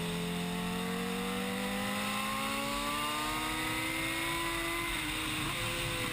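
A vehicle engine accelerating, its pitch climbing steadily for about five seconds, dipping briefly, then starting to fall near the end.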